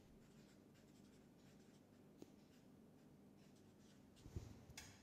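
Marker pen writing on paper: faint, short scratchy strokes as letters are drawn. A few soft knocks and a brief rustle come near the end.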